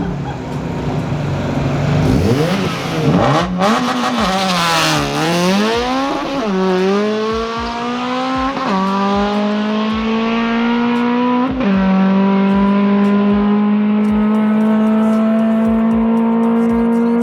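A drag-racing car's engine accelerating down the track through the gears: after some wavering revs, the pitch climbs in each gear and drops sharply at each upshift, three times, then holds nearly steady in top gear.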